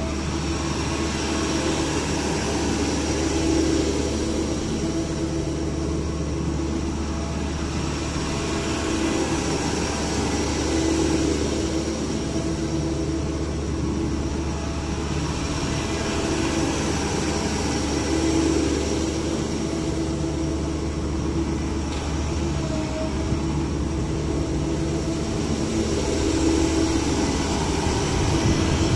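Diesel engine of a CAT 306 excavator running steadily, its note swelling and easing every few seconds.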